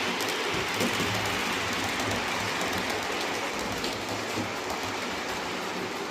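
Model train running on the layout's track: a steady motor hum and wheel rumble with faint clicking over the rail joints.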